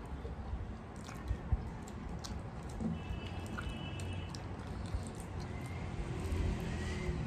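Soft eating sounds: fingers squishing and mixing curry and rice on brass plates, and chewing, with scattered small clicks.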